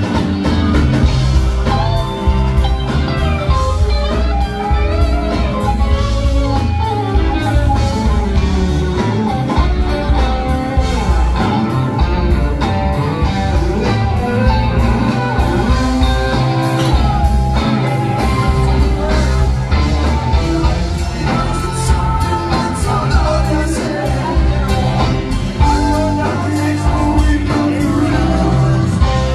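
Live rock band playing loudly: electric guitars, bass and drum kit, with a singer's voice over them.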